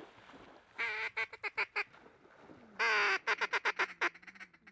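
Loud, close quacking in a hen mallard's cadence: a long quack followed by a quick run of shorter quacks, heard twice, the second run louder and longer.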